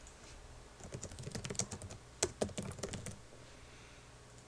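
Typing on a computer keyboard: a quick run of keystrokes starting about a second in and lasting about two seconds.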